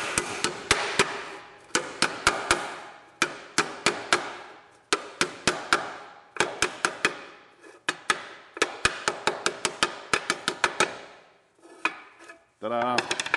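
Lid of a steel one-quart paint can being tapped shut with a screwdriver: runs of sharp taps, several a second, with short pauses between the runs. The tapping stops about eleven seconds in.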